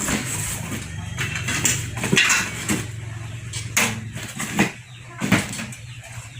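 Irregular knocks and light clatters of metal gas-stove parts being handled, over a steady low hum.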